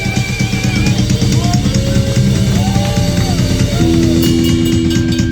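Live rock band playing: a drum kit beating out a steady rhythm with bass drum and snare under held guitar and bass notes.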